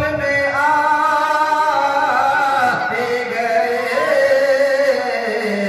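Men singing a naat into stage microphones, drawing out long notes that glide and waver in pitch.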